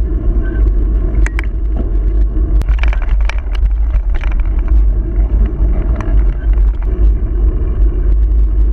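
Wind buffeting the microphone of a handlebar-mounted camera as the bicycle rolls along an asphalt road: a loud, steady low rumble, with several sharp clicks and rattles about one to four seconds in.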